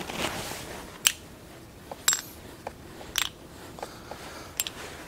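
A G2 manual locking hub being pulled off a truck's front axle and handled: a short scrape, then a handful of sharp metal clicks and clinks about a second apart, one ringing briefly.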